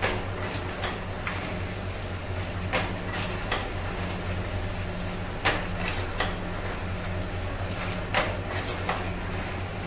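Automatic paper plate (dona pattal) press machine running: a steady hum from its electric motor and pulley drive, with sharp clacks at uneven intervals, about one a second, as the crank-driven dies press the plates.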